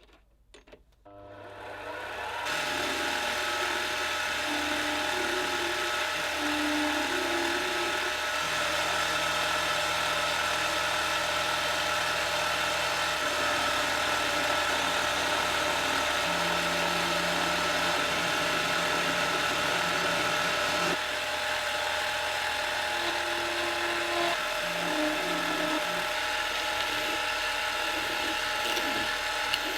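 An electric power tool switched on after a couple of clicks, its motor spinning up over about a second and then running steadily with a constant whine, the load shifting slightly about two-thirds through.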